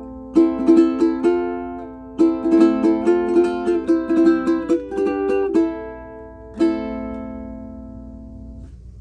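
Pono PCMP prototype pineapple ukulele in curly spalted mango, strung with a wound low G, strummed in quick chords that change several times. It closes on a single final strum that rings out and fades away.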